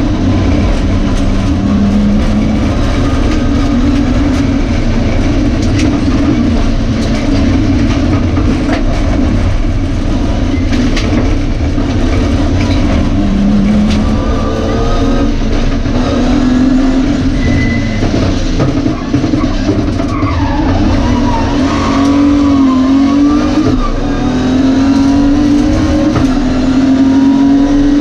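BMW E30 rally car's engine heard from inside the cabin, running hard at stage speed, its pitch rising and falling with throttle and gear changes, dropping and climbing again a little past the middle, over steady road and wind noise.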